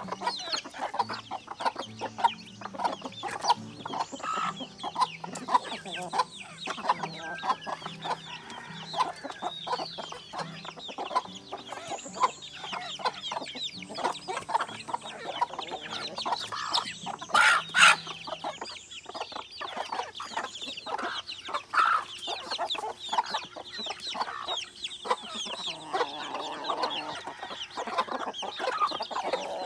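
A flock of native chickens feeding: hens clucking and chicks peeping, over many quick pecking taps on bare ground. One louder sharp burst comes about two-thirds of the way through.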